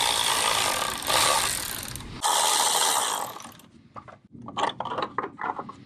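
A ratchet spinning a 13 mm bolt out in two runs, the first about two seconds long and the second about a second, followed by scattered light metal clicks and knocks as parts are handled.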